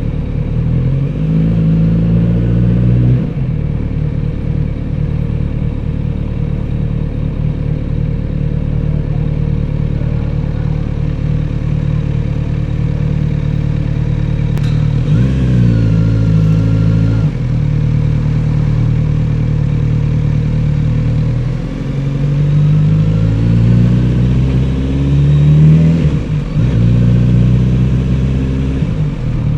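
Kawasaki Z900RS inline-four engine and exhaust under way, accelerating in rising pulls broken by gear changes three times, with steady running in between and easing off near the end.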